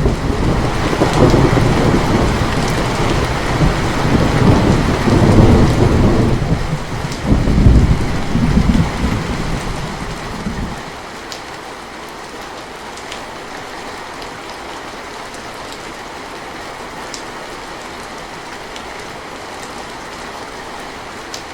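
Steady rainfall with a thunderclap that breaks sharply at the start and rumbles low for about ten seconds, swelling again about seven seconds in, then dies away and leaves only the even hiss of the rain.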